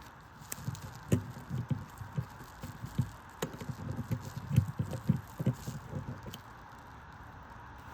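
Irregular knocks and clicks of hands working a speaker cabinet's quarter-inch TS jack connector loose from its housing. The knocks run from about half a second in and stop about six seconds in.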